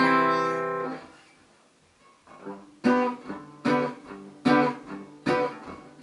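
1959 Hofner President archtop guitar played unplugged: a strummed chord rings out and fades, then from about three seconds in notes and chords are picked at an even pace, a little over one a second. The bass notes ring clear and bright, without fret buzz, on the freshly refretted guitar.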